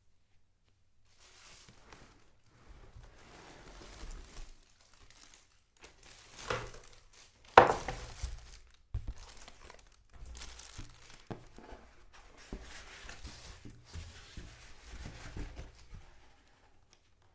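Packaging being unwrapped by hand: irregular crinkling and tearing of wrapping, with one sharp loud snap or knock about halfway through.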